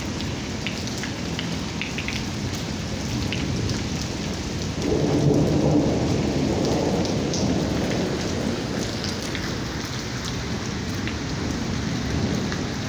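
Steady rain falling on wet ground and puddles, with scattered sharp ticks. About five seconds in, a rumble of thunder swells, then fades away over the next few seconds.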